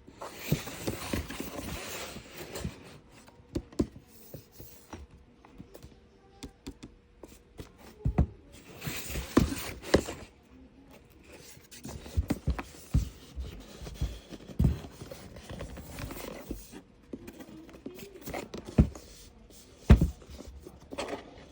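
Small pieces of a miniature model kit being handled: irregular clicks and taps, with stretches of rustling in the first few seconds and again about nine seconds in.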